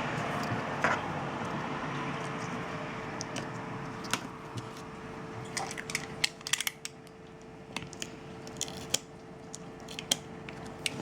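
Scattered small clicks and taps of a phone and its small parts being handled as a replacement camera lens cover is fitted, coming thicker in the second half, over a faint steady hum.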